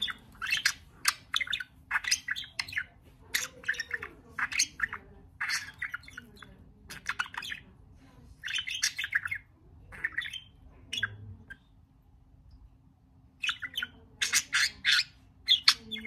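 Budgerigar chirping and chattering in rapid clusters of short, sharp notes, falling silent for about two seconds near the end before a last quick flurry.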